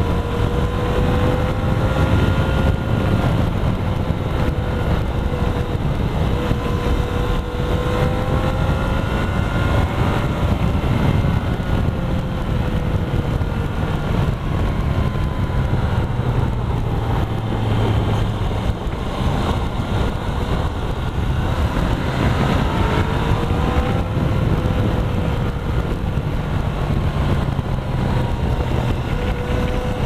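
Motorcycle engine running under way, its pitch rising and falling several times as the rider accelerates and eases off through the bends. Wind rushes over the helmet-mounted microphone.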